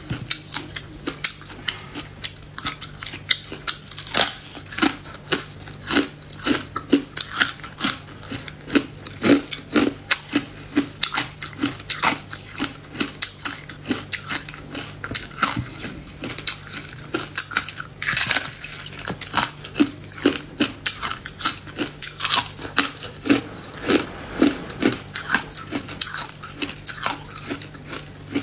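Close-miked crunching of hard clear ice being bitten and chewed, with sharp cracks about once or twice a second. A faint steady low hum runs underneath.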